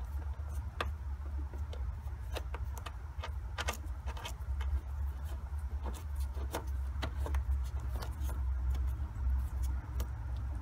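Light metallic clicks and ticks, irregular and close together, as a wing nut and washer are turned by hand onto the bolt holding the subwoofer to the rear deck panel, over a steady low rumble.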